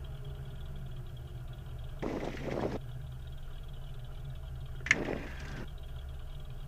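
Cessna Skylane's piston engine running at low power as the plane taxis clear of the runway after landing, a steady low drone heard through the cockpit intercom. Two brief bursts of hiss come about two and five seconds in.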